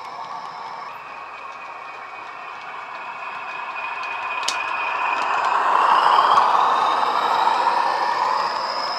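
Recorded Class 40 diesel sound from an ESU LokSound decoder, played through a model locomotive's small speakers: the English Electric engine running with a high turbocharger whistle that rises in pitch midway. It grows louder to a peak about six seconds in, then eases.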